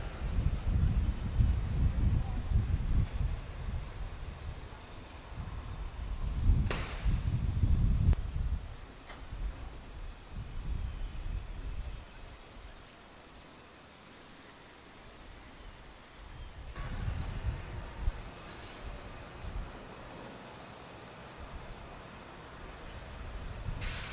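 Insects chirping steadily, a high pulsing call repeating several times a second, under gusts of wind rumbling on the microphone. The gusts are strongest at the start and pick up again in the second half, with one brief knock about seven seconds in.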